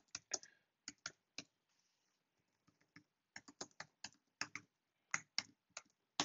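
Computer keyboard keys being typed: a few keystrokes in the first second and a half, a pause of about two seconds, then a quicker run of keystrokes.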